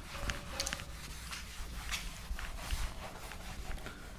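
A cloth duster rubbing across a whiteboard, erasing marker writing in a string of short scratchy wiping strokes.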